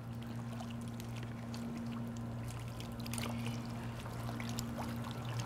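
Water trickling and lapping in a shallow alligator pool, with faint small splashes, over a steady low hum.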